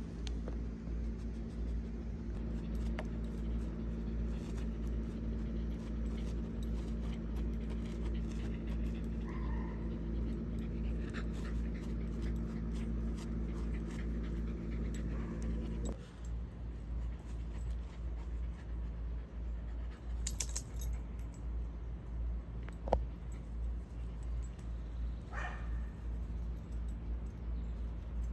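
Dogs at play, making a few short, pitched vocal sounds over a steady low background hum. The hum changes abruptly about halfway through.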